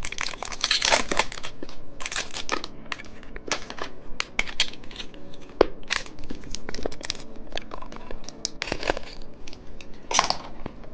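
Candy packaging crinkling as it is handled, in a stream of irregular crackles.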